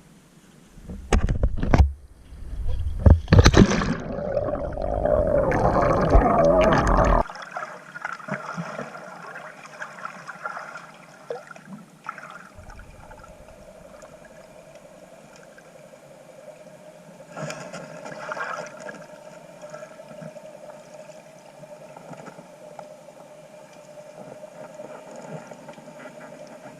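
Water splashing and gurgling around a diver's camera for several seconds. At about seven seconds it gives way to muffled underwater sound with a faint steady hum.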